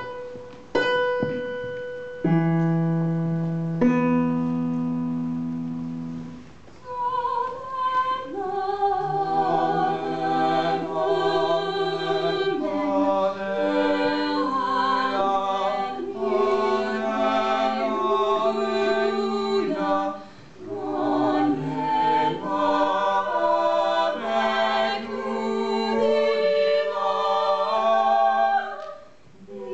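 A piano strikes four single notes one after another, each left to die away, giving the starting pitches; then a mixed vocal quartet of teenage singers sings a four-part song together, with vibrato and no accompaniment, pausing briefly between phrases about two-thirds in and again near the end.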